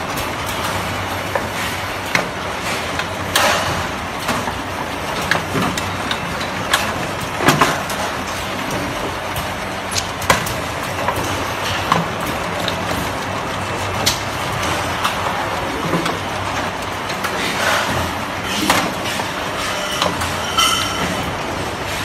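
Automated LED panel light assembly machinery running: a steady mechanical noise with irregular sharp clicks and clacks from the moving heads and fixtures, one every second or two.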